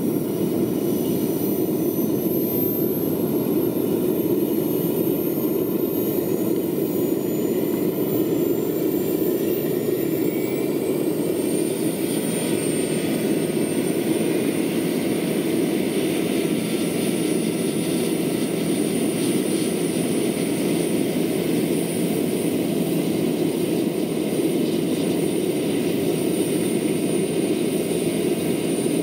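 Jakadofsky Pro 6000 model gas turbine of a large-scale RC Aérospatiale Gazelle helicopter running up on the ground, with the main rotor turning. It is a steady rushing hum under a high turbine whine. The whine rises in pitch for about the first ten seconds, then holds steady as the rotor comes up to speed.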